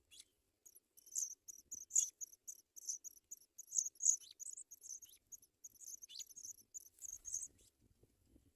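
African pipit nestlings begging: a rapid run of thin, very high-pitched cheeps, several a second, rising and falling in loudness and stopping shortly before the end.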